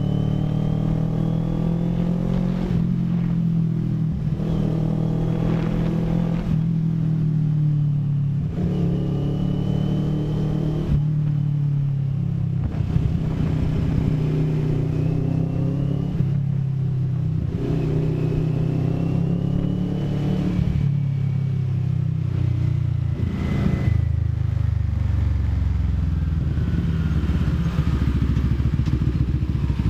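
CFMoto 400NK motorcycle's parallel-twin engine accelerating through the gears: its pitch climbs for two to three seconds, drops at each shift and climbs again, over and over, then settles into a lower, steadier run near the end.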